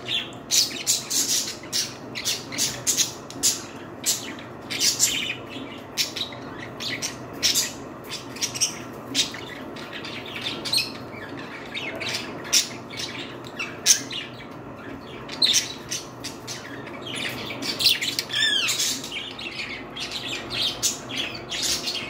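Budgerigars chattering: a dense run of short, high-pitched chirps and squawks, with a few calls sliding in pitch about three-quarters of the way through.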